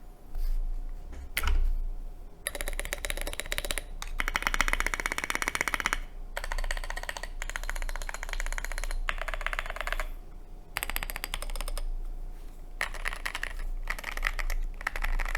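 Fast typing on a Glorious GMMK Pro mechanical keyboard with stock pre-lubed Everglide Aqua King V3 linear switches on a polycarbonate plate and SA profile doubleshot keycaps. The keys clatter in quick bursts of a second or more with short pauses between them.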